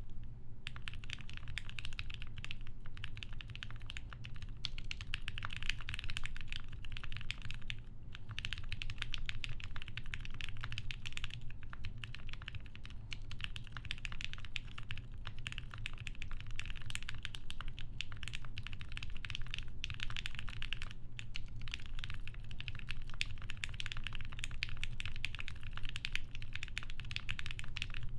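Steady fast typing on a TGR Jane v2 custom mechanical keyboard: lubed Gateron Black Ink linear switches on an FR4 half plate with GMK keycaps, giving dense keystroke clicks with a few short pauses.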